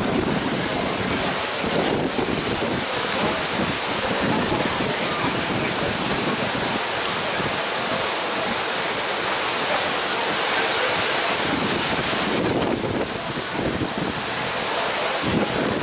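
Strong wind of a desert dust storm, a steady rushing noise that buffets the microphone.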